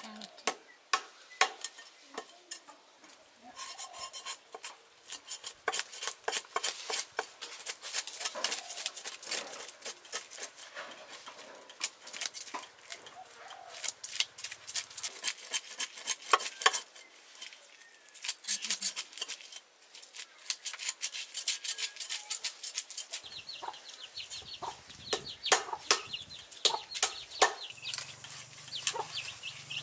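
A cleaver scraping the scales off a climbing perch (Anabas testudineus) on a wooden chopping block: rapid runs of rasping strokes and clicks, broken by short pauses.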